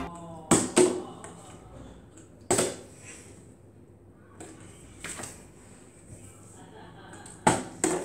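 A part-filled plastic water bottle knocking on a hard tiled floor in a failed bottle flip, ending up on its side. The sharp knocks are scattered: two close together near the start, one about two and a half seconds in, a fainter one about five seconds in, and another close pair near the end.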